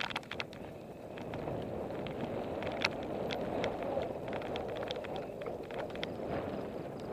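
Salsa El Mariachi Ti mountain bike rolling along a dirt singletrack: a steady rush of tyre noise and wind that grows louder about a second in, with scattered sharp clicks and rattles over the bumps.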